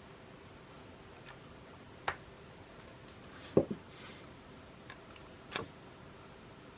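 Quiet room hiss with three short clicks about two seconds, three and a half seconds and five and a half seconds in; the middle one is the loudest, a dull double knock.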